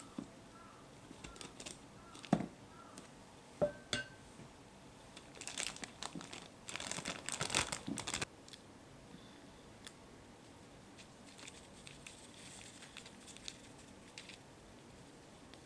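Plastic zip-top bag crinkling as it is filled with churro dough from a wooden spatula and then squeezed. Two sharp taps come in the first four seconds. The loudest crinkling comes about six to eight seconds in, then it fades to faint rustling.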